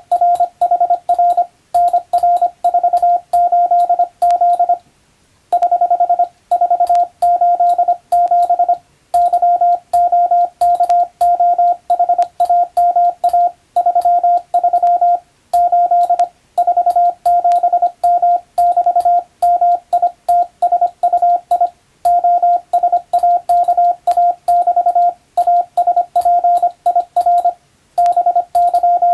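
Morse code (CW) practice signal: a single steady beep keyed on and off in rapid dots and dashes, sent in groups of characters with short pauses between them.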